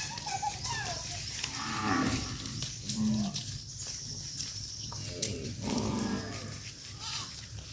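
Cattle mooing: several separate calls, one after another, over a steady low hum.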